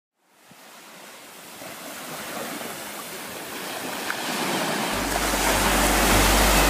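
Sea surf washing up on a sand beach, fading in from silence and growing steadily louder. A low, steady bass note of music comes in about five seconds in.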